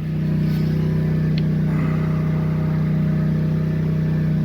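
A plasma cutter cutting steel: a steady, loud hum with a hiss over it that holds without a break.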